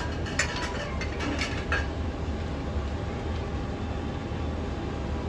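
A soft plastic curd pouch crinkling and crackling in the hands for about the first two seconds, over a steady low rumble that runs throughout.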